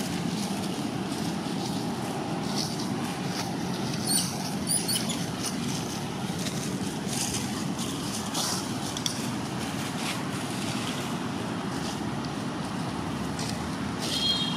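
Steady low rumbling noise throughout, with two brief high-pitched chirps about four and five seconds in.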